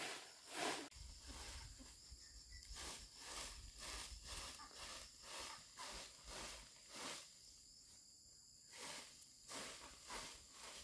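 Faint steady buzz of insects, with a rhythmic rustling crunch about twice a second that pauses briefly before the last couple of seconds.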